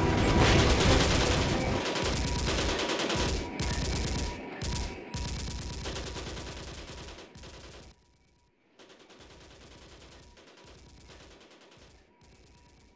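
Dense gunfire with rapid shots, loud at first and dying away to near silence about eight seconds in, then fainter shots going on.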